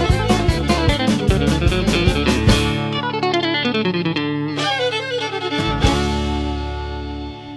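Closing bars of an instrumental country dance tune on guitar and fiddle. A steady beat carries on for about three seconds, then the rhythm stops. A final chord is struck near the end and left to ring as it fades away.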